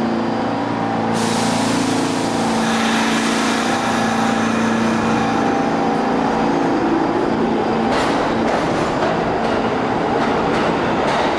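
R46 New York City Subway train pulling out of an underground station. A low motor hum rises slightly in pitch, with a burst of hiss about a second in. Rolling wheel and track noise grows louder near the end.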